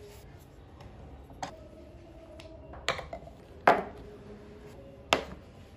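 Carved wooden model parts being set down and fitted onto a wooden model truck: four light wooden knocks, the loudest about three and a half seconds in.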